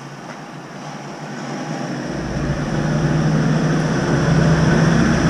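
A Land Rover Discovery drives up a wet street towards the microphone. Its engine hum and the hiss of tyres on the wet road grow louder from about two seconds in.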